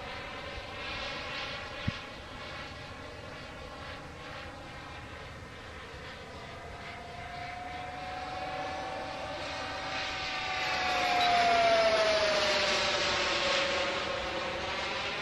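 Radio-controlled Tomahawk Futura model airplane flying past overhead: a steady motor whine that grows louder and drops in pitch as it passes, loudest a little after the middle. A single sharp click about two seconds in.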